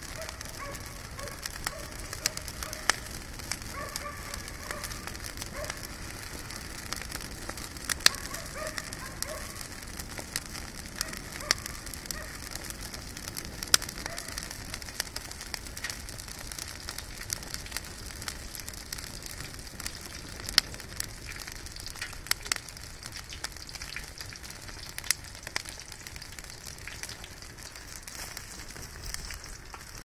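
Wood fire burning in a washing-machine-drum fire pit, crackling steadily with irregular sharp pops.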